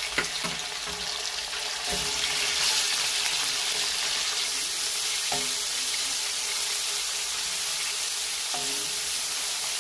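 Raw chicken strips sizzling in hot oil with chopped garlic in a steel karahi. The sizzle grows louder about two seconds in, with a few taps and scrapes of a spatula stirring the pieces.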